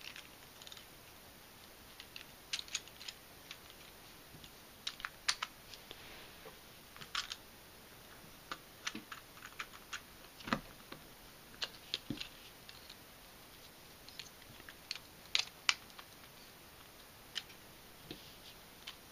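Irregular, light clicks and taps of 3D-printed plastic puzzle pieces being handled and snapped together, with a couple of soft knocks about halfway through.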